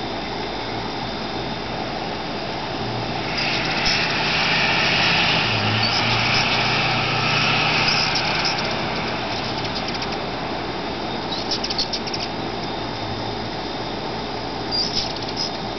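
Hummingbirds at a feeder: the low hum of their wings and a few short, high chips, over a steady hiss that swells into a louder rush for several seconds in the middle.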